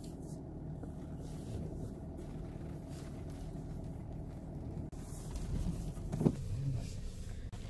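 SsangYong Rexton Sports Khan pickup driving slowly over gravel, heard from inside the cab: a steady low engine and tyre hum, with one sharp knock about six seconds in.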